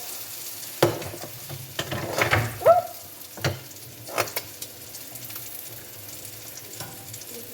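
Food sizzling in a frying pan, with several sharp knocks and clatters in the first half.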